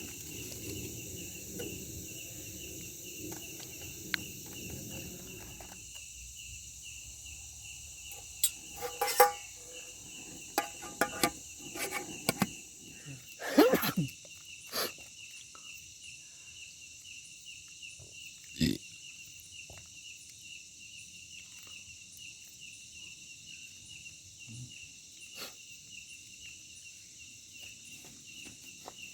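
Night insects, crickets among them, chirping in a steady high-pitched chorus with an even pulse. Scattered short clicks and knocks sound over it, mostly in the middle.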